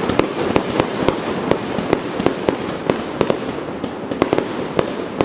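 Fireworks going off: a rapid, irregular string of sharp bangs, about three a second, over a steady noisy background.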